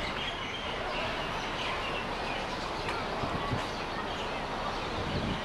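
Small birds chirping in short scattered calls over a steady outdoor background hiss.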